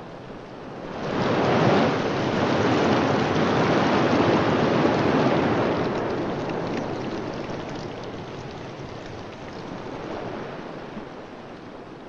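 Ocean surf washing in, swelling up about a second in and then slowly ebbing away.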